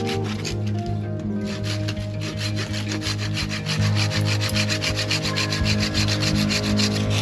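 Hand saw cutting through wood in quick, regular back-and-forth strokes, over background music.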